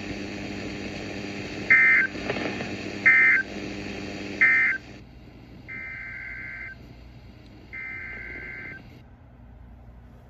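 Emergency Alert System SAME data signal from a weather-radio broadcast: three short, loud bursts of warbling digital data tones about a second and a half apart, typical of the end-of-message code, over a steady radio hiss. The hiss drops away after the third burst, and two longer, quieter data bursts follow about two seconds apart.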